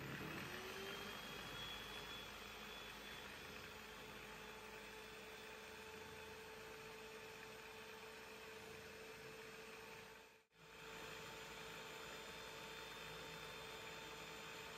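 Electric stand mixer's motor running with a faint, steady hum, its beaters whisking chickpea water as oil is added to make eggless mayonnaise. The sound cuts out for a moment about ten and a half seconds in.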